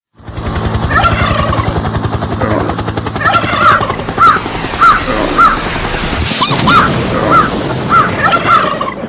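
Animal calls laid over the picture: a continuous rough, pulsing rumble with a run of short yelping calls, about two a second, through the middle. It starts just after a moment of silence.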